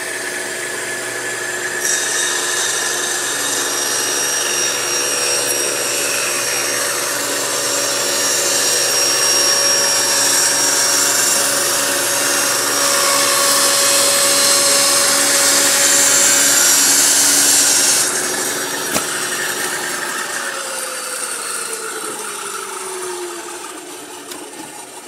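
Table saw running and ripping through a glued-up hardwood cutting board: the cutting hiss comes in about two seconds in and lasts some sixteen seconds. After the cut the saw is switched off and its pitch falls as the blade winds down.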